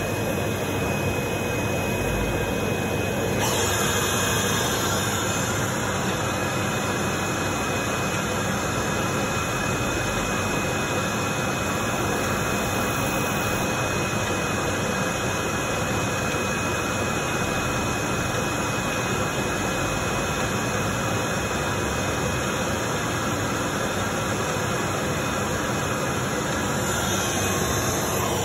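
Running workshop machinery giving a steady whirring hiss with a faint high whine. The hiss brightens about three seconds in and eases near the end.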